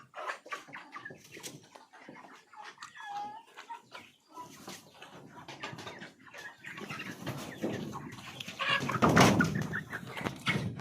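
Flock of Kuroiler chickens clucking and calling, with short scratchy clicks throughout. The noise builds to a louder scuffling burst about nine seconds in.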